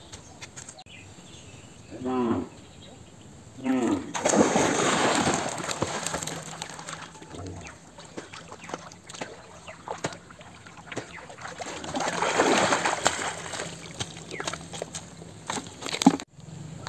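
Water splashing and sloshing as a person enters the river and swims, in two longer spells of splashing, the first right after two short voice calls. A sharp click near the end.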